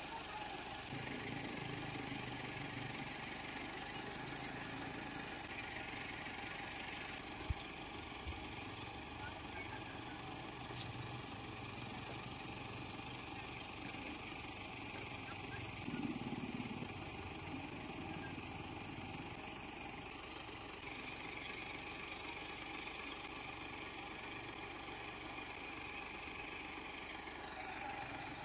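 Night ambience: insects chirping in quick clusters of a few high pulses every second or two, most prominent in the first several seconds, over a low steady hum.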